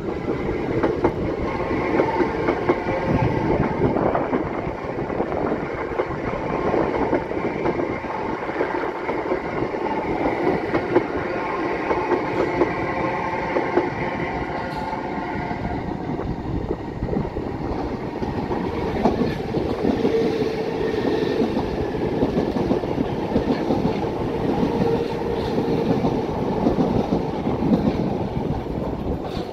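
South Western Railway Class 455 electric multiple unit running past on the tracks below, a steady rumble with its wheels clattering over the rail joints and points.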